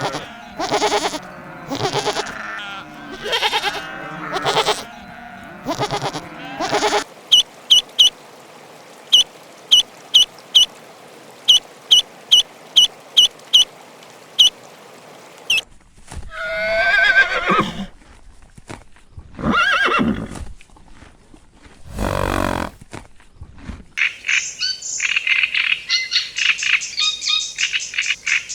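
A run of farm animal calls. Bleating for the first seven seconds, then a series of short high peeps one or two a second, then a few louder drawn-out calls, and dense bird chirping near the end.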